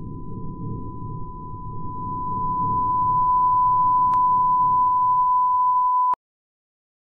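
A steady, high-pitched electronic beep: a single pure tone that swells louder over a second or so, holds, and cuts off suddenly about six seconds in. A low background rumble under it fades away at the same time, and there is a faint click about four seconds in.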